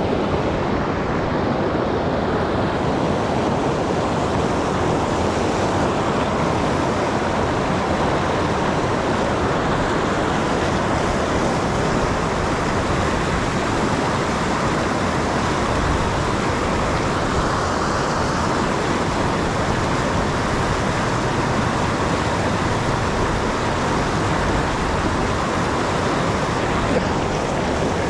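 A loud, steady rushing noise that runs without a break, like wind buffeting the microphone or fast water.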